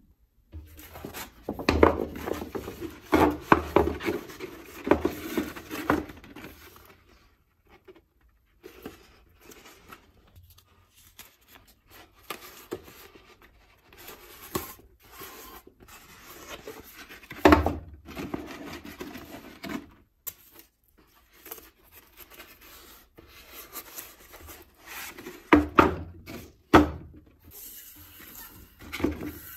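A thin, flexible reflective sheet being handled, taped and rolled into a tube on a wooden table: irregular rustling and rubbing with several sharp knocks.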